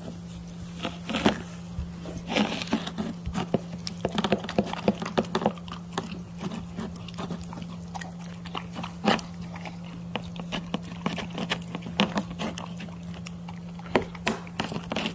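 Golden retriever puppy eating soft sardine pieces from a plastic plate: wet chewing, licking and lip-smacking, many quick irregular smacks and clicks. A steady low hum runs underneath.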